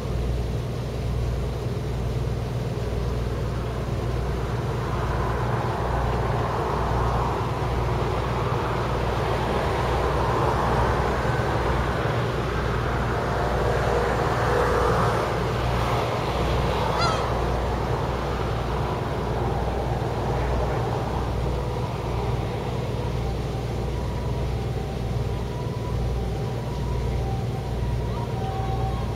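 Steady low engine drone. A broader rushing noise swells in the middle, and there is one sharp click about seventeen seconds in.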